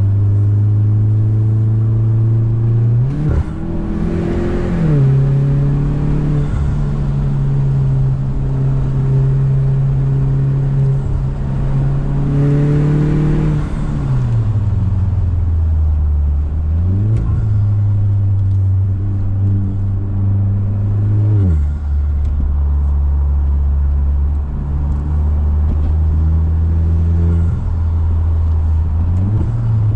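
Mazda6's engine and exhaust while driving, the note holding steady for stretches and then rising and falling several times as the car accelerates and eases off.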